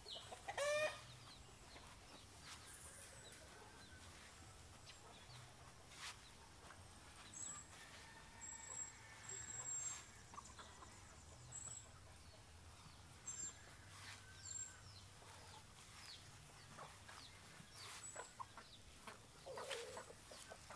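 Free-range chickens clucking, with one loud call from a rooster or hen about half a second in and scattered faint calls after it, another near the end.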